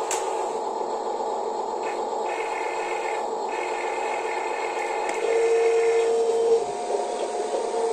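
Small electric motors and plastic gearboxes of a radio-controlled Huina excavator and dump truck whining steadily as they work. A higher, louder whine comes in about five seconds in and drops away about a second and a half later.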